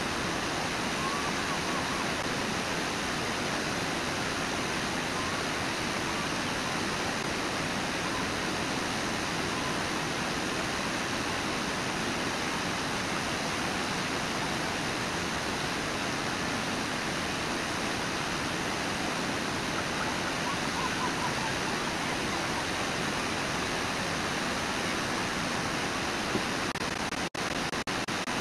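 Steady rush of water from Brooks Falls and the Brooks River, an even noise that does not change. Near the end the sound cuts out briefly a few times.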